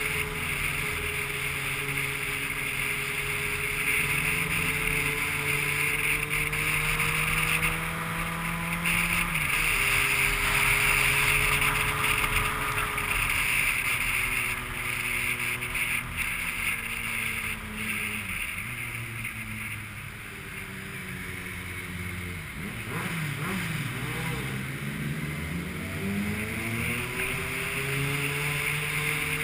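Vehicle engine running on a drive, with wind noise. Its pitch holds steady, drops and wavers about two-thirds through, then rises again.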